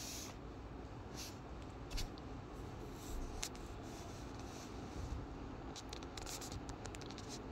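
Faint room noise with scattered soft clicks and brief scratchy rustles, coming thicker as a quick run of small clicks near the end.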